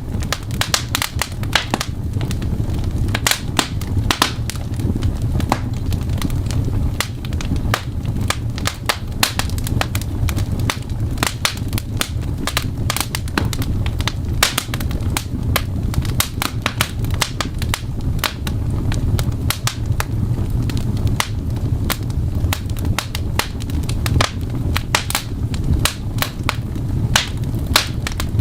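Fireplace crackling: many irregular sharp pops and snaps over a steady low rumble.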